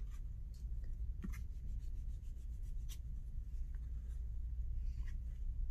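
Construction paper rustling and rubbing as hands roll it around a cardboard toilet-paper tube and press it onto the glue, a few faint crinkles over a steady low hum.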